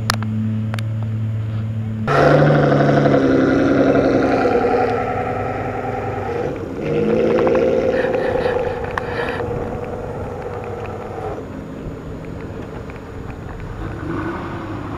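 Aston Martin engine running, revved about two seconds in and again about seven seconds in, each rev swelling and falling away, then settling back to a steadier, quieter run.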